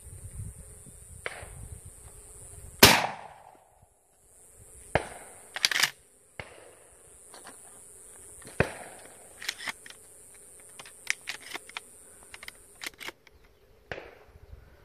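Shotgun shots fired at doves: one loud close shot about three seconds in, several more shots near and far over the next few seconds, including a quick pair, then a scatter of fainter distant shots.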